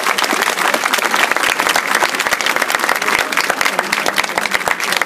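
Crowd applauding, with many hands clapping densely at once.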